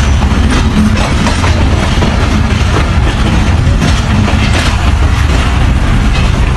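Passenger train running along the track, heard from an open door: a steady, loud rumble with the wheels knocking over the rails at irregular intervals.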